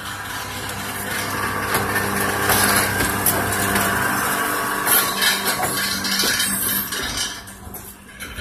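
Diesel engine of a self-propelled railroad track-maintenance machine running as it rolls past on the rails, with repeated metallic clanking and rattling from the machine on the track. It grows louder as it passes and fades as it moves away near the end.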